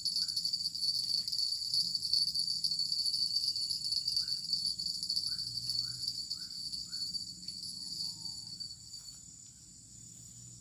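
Steady high-pitched chorus of insects buzzing without a break, fading out near the end. A run of about five short chirps comes in quick succession in the middle.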